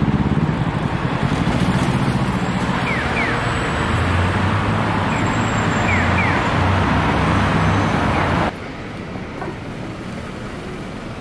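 Busy city street traffic, a steady loud rumble of cars and trucks with a few short high chirps over it. About eight and a half seconds in it cuts off abruptly to a much quieter street ambience.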